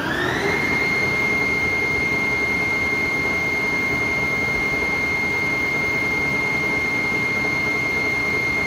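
Lucas Precision 542B-84 horizontal boring mill's drive running: a high gear whine that climbs to speed, settles at one steady pitch about half a second in, and starts to wind down at the very end.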